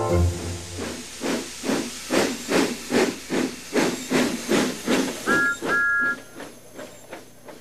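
Steam locomotive chuffing steadily at about two and a half puffs a second, with two short two-note whistle toots just past the middle; the puffs fade away near the end.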